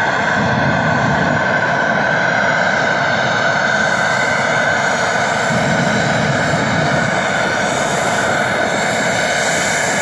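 Loud, steady rushing noise, white noise, holding the same level throughout with no breaks or separate events.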